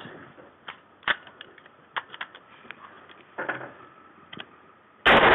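Scattered light clicks and a short rattle of an AR-15-style rifle being handled. Near the end, a sudden loud, sustained noise cuts in.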